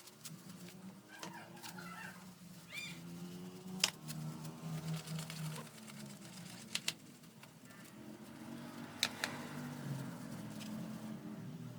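Fan being cleaned: faint rubbing and handling sounds, with three sharp clicks (about 4, 7 and 9 seconds in) and a short squeak near 3 seconds.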